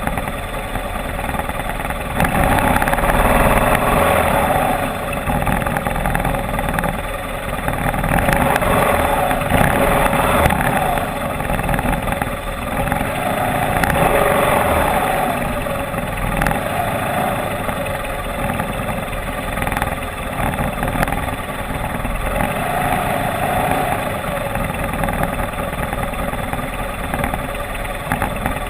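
Motorcycle engine running as it is ridden, swelling louder several times as the throttle opens and easing off in between.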